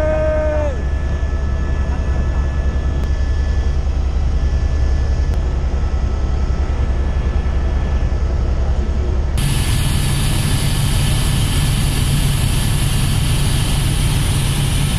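Helicopter cabin noise in flight: the fast low chop of the main rotor under a steady mechanical whine. The sound changes abruptly about nine seconds in.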